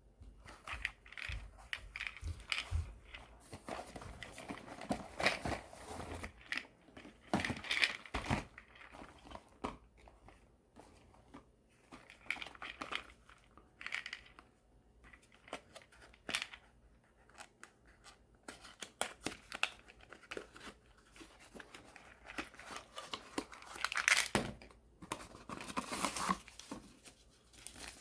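Medicine packaging being unwrapped by hand: irregular crinkling, tearing and rustling with small clicks, coming in bursts with short pauses between.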